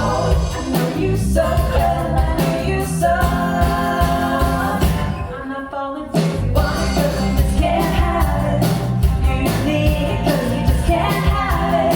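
Live rock band playing with a lead vocal, with drums hitting throughout. The band eases off for a moment about six seconds in, then comes back in at full volume.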